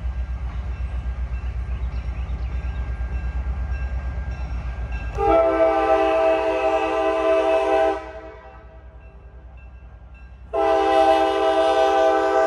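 Locomotive's Leslie K5LA five-chime air horn sounding two long blasts for a grade crossing: the first starts about halfway through and lasts about two and a half seconds, the second begins near the end and is still sounding at the close. Before the first blast, a low pulsing rumble of the approaching locomotive.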